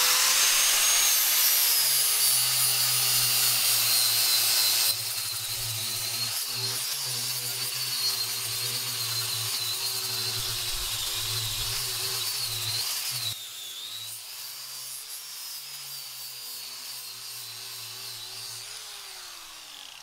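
Electric angle grinder running with a steady high whine, grinding the face of a wood slice smooth. The sound drops in level abruptly twice, and its pitch falls near the end as the grinder winds down.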